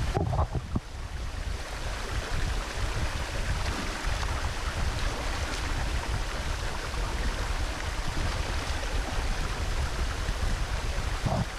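Steady rushing and splashing of a small waterfall pouring over rocks.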